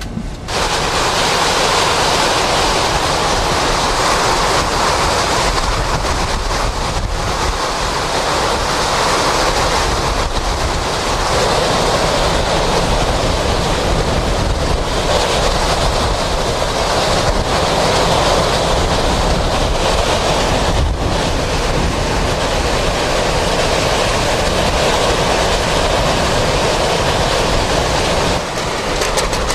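Hurricane-force wind roaring steadily and loudly, with gusts buffeting the microphone.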